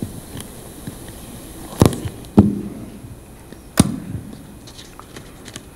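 Three sharp knocks and thumps, the loudest two close together a little under two seconds in and the third near four seconds, with a few faint clicks between: handling and shuffling sounds, not speech.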